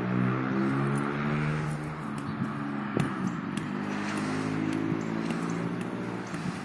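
A leather football being juggled on the feet: several short taps of foot on ball, the clearest about halfway through, over a steady low hum.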